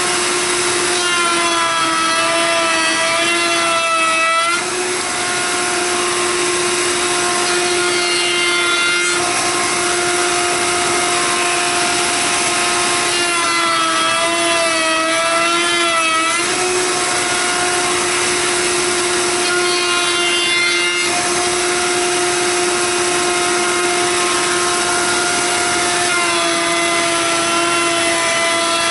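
A table-mounted router runs at a steady high whine. Several times its pitch dips and wavers as the bit cuts a profile into a hand-fed board, clearest from about a second in and again around fourteen seconds in. These are repeated cutting passes, two on each cut.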